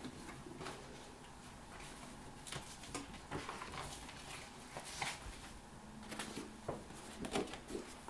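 Paper picture cards being handled and sorted by hand: a string of short rustles and light knocks, busiest through the second half.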